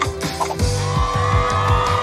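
Background music; a section with a steady beat starts about half a second in.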